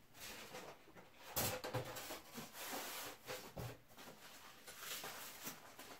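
Hands handling packaging and parts from a 3D-printer kit box: rustling with irregular light knocks, the sharpest about a second and a half in.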